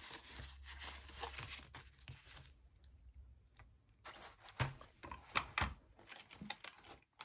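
Paper scraps rustling and crinkling as hands shuffle and rummage through a pile of loose paper and ephemera, with a few sharp crackles and a quieter lull near the middle.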